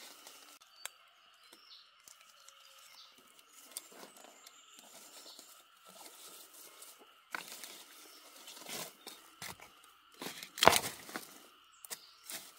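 Rustling, crackling and tearing of leaves and plant stalks, with scattered snaps and one loud crack about three-quarters through, over a steady insect drone.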